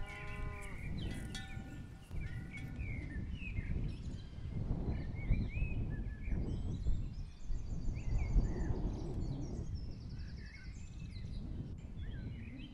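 Countryside ambience: small birds chirping and whistling over a low, uneven rumble, with a high rapid trill around the middle.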